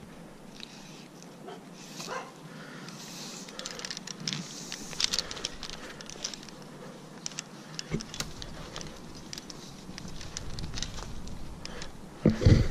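Climbing rope and harness hardware being handled: scattered light clicks and rustling from the rope, carabiners and branches.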